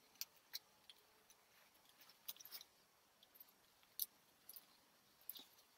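Faint handling sounds as gloved hands unwrap a black non-woven fabric pouch from a Panasonic Lumix GH5 camera body: scattered soft rustles and small sharp clicks, the loudest about four seconds in.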